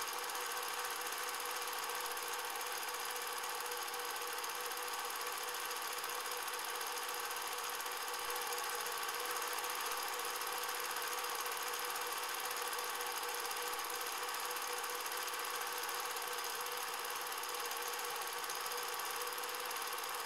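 Cine film projector running: a steady mechanical whirr with a constant hum and hiss that does not change.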